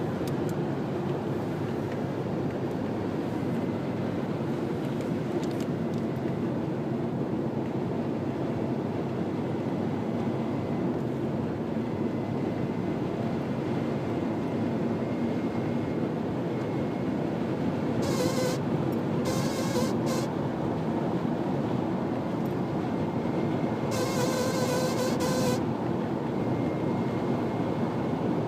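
A Subaru running with a steady rumble of engine and road noise and a faint steady whine. In the last third come a few short buzzing bursts, each about a second long, the longest near the end. This is the abnormal noise (異音) the car is making.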